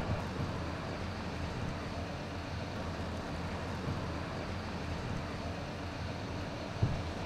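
Steady low rumble of a vehicle driving on a road, with a brief low thump near the end.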